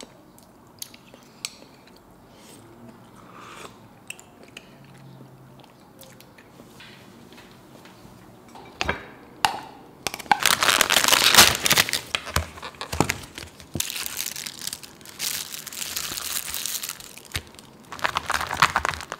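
A few faint clicks at first, then from about ten seconds in a long stretch of loud plastic food packaging crinkling and tearing, with a shorter burst near the end.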